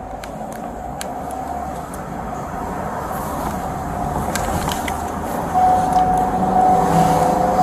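A motor vehicle running and growing steadily louder, with a steady high tone that gets much louder about five and a half seconds in, and scattered clicks.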